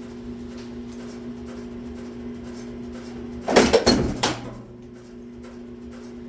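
Small punch press humming steadily as it runs, with a loud burst of metallic knocks and clatter about three and a half seconds in as the press cycles on a part.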